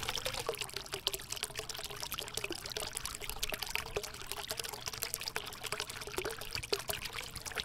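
Water trickling and bubbling, a steady run of many small irregular clicks.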